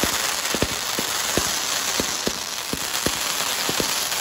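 Fireworks shooting gold spark-trailed comets: a steady crackling hiss of burning sparks with sharp pops at irregular spacing, about two to three a second.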